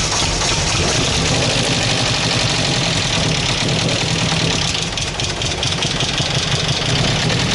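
Ford Sierra engine running roughly after years laid up, with a knock that those present suspect comes from a connecting rod or the top end, and misfiring on one cylinder.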